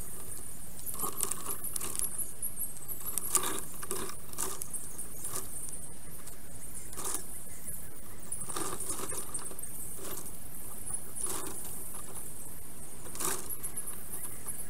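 Scattered rustles and light knocks of twigs and moss as a black stork works on its stick nest, picked up by the nest camera's microphone. There are about eight irregular ones, over a steady high hiss.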